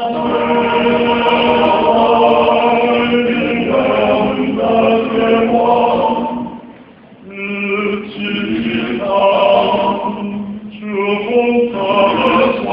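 Small male vocal ensemble singing unaccompanied in close harmony, holding sustained chords; the voices break off briefly about seven seconds in, then come back in on a new phrase.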